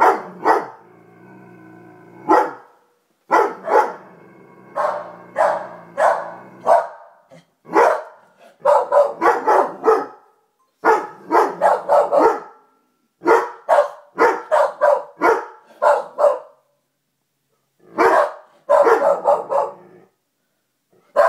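A Labrador–Weimaraner mix and a Corgi barking in quick runs of several barks at a time, pausing briefly every few seconds. In the first several seconds a low, drawn-out growl runs between and under the barks.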